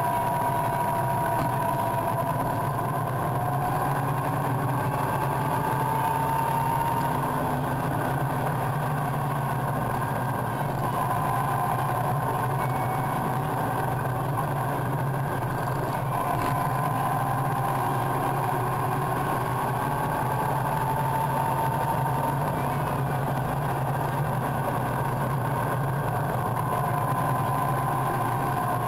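Motorcycle engine running at a steady road speed, heard from behind the windscreen, with wind and road noise. Its pitch rises slowly a few times and settles back.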